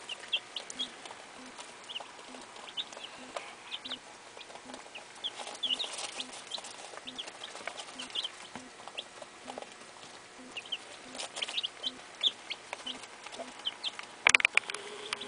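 A brood of young Rhode Island Red and Barred Rock chicks peeping, many short high chirps scattered throughout. Underneath there is a faint ticking about twice a second, and a brief louder burst of noise comes near the end.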